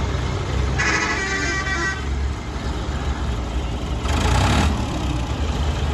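Farm tractor diesel engine running with a steady low rumble. About a second in there is a short horn-like toot lasting about a second, and a little after four seconds a brief, louder rush of noise.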